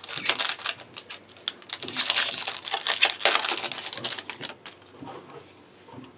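Foil trading-card booster pack crinkling and being torn open: a dense run of crackles and clicks, loudest about two to three seconds in. Near the end the freshly pulled cards are being handled.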